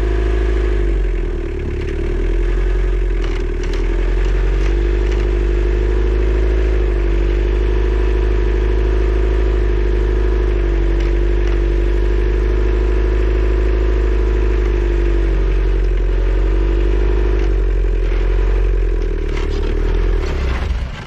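Takeuchi TL130 skid steer's repowered 2.2 L Isuzu C223 diesel running at high idle with clattering and scraping, then cutting out near the end.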